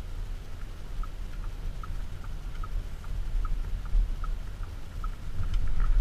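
Turn-signal indicator ticking steadily in the Audi SQ7's cabin, about two and a half ticks a second, over the low rumble of its 4.0 TDI V8 diesel and road noise.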